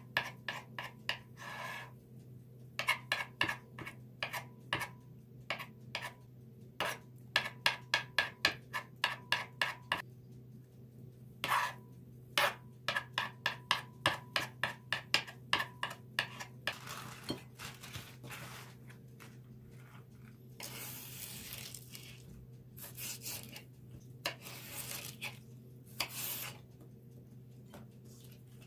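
Kitchen knife cutting boiled eggs into strips, the blade tapping against the board in quick runs of about four taps a second with short pauses. From about 17 seconds in the tapping gives way to softer rustling and scraping, over a steady low hum.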